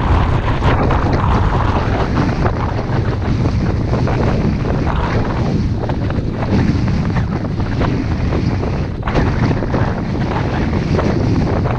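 Wind buffeting the microphone of a camera carried by a moving skier, with the hiss and scrape of skis sliding on groomed snow underneath. The noise is loud and steady throughout.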